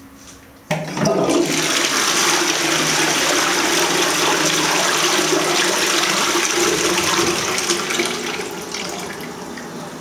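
Toilet flushing: a sudden rush of water begins just under a second in and runs loud and steady for several seconds, then eases off toward the end.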